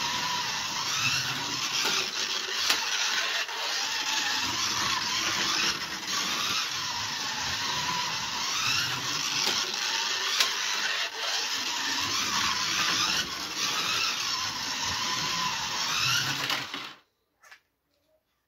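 Scalextric slot car running laps on its plastic track: the small electric motor whines, rising in pitch again and again as it speeds up along the track, with a few clicks. The sound cuts off suddenly about seventeen seconds in.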